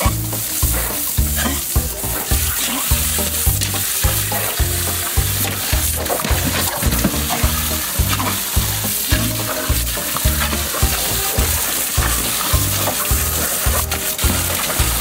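Steady hiss of a water jet spraying from a hose and spattering onto concrete and a plastic paddling pool, over background music with a steady bass beat.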